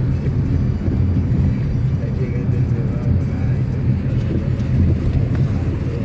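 Inside a moving car's cabin: a steady low rumble of engine and tyres on wet road.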